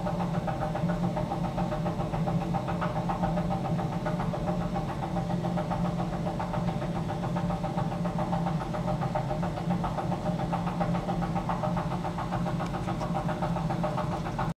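Vacuum pump running steadily with an even mechanical hum, pumping down the chamber over nitrogen that has frozen solid under the low pressure.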